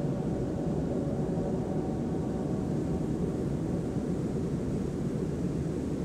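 Steady low rumbling noise with no distinct events.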